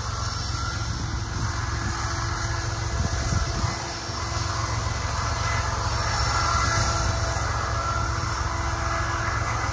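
Ethanol tank-car freight train rolling past: a steady rumble of steel wheels on the rails, with a short cluster of low thumps about three seconds in.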